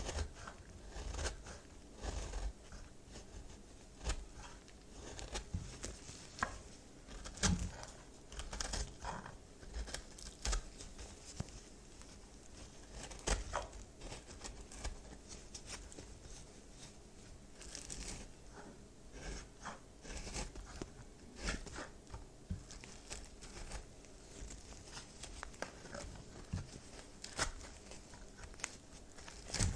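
Brittle, puffed-up microwaved baby soap being cut and crumbled, giving irregular dry crunching and crackling with sharp snaps scattered through it.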